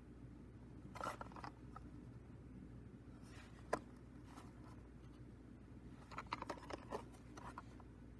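Faint handling of a cassette in its clear plastic case, turned over in the hands: light rustles and small clicks, one sharper click a little under four seconds in, and a cluster of light crackles near the end, over a low steady hum.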